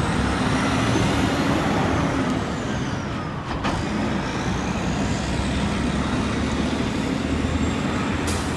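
Street traffic dominated by a heavy vehicle's engine running, a steady low drone that eases briefly midway and then returns.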